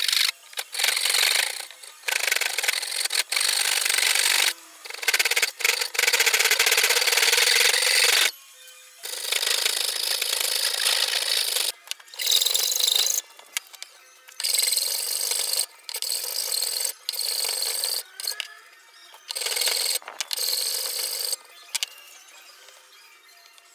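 Hand saw cutting into a block of Oregon pine held in a vise, in repeated runs of rasping strokes broken by short pauses.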